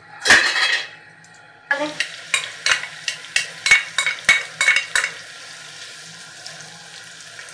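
Sliced onions sizzling in hot ghee in a nonstick pot, with a wooden spoon clacking against the pot as they are stirred. A brief clatter comes near the start; the sizzling sets in about two seconds in, with the spoon clacks over the next few seconds, then a steadier sizzle.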